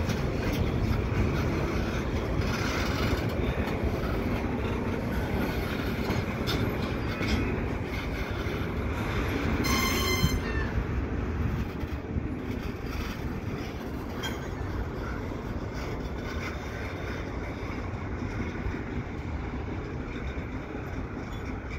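Freight cars rolling slowly on yard track during switching, wheels clicking over rail joints under a steady low rumble. A short, high-pitched metallic wheel squeal comes about ten seconds in.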